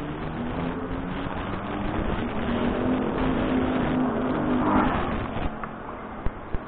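A motor vehicle's engine running, growing louder toward the middle and fading away about five and a half seconds in.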